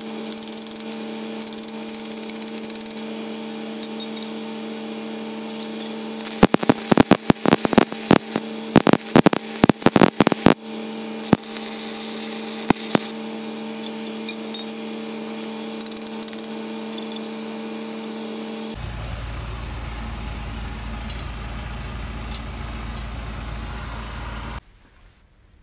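Arc welding on a steel furniture leg: a run of sharp crackles and pops from the arc for about four seconds, starting about a third of the way in, over a steady machine hum.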